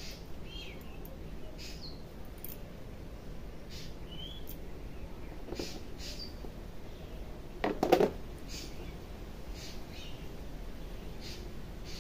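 Hair cracking in a head massage: locks of hair twisted and tugged, giving short dry crackles about once a second. About eight seconds in, a louder, sharp knock or slap is the loudest sound.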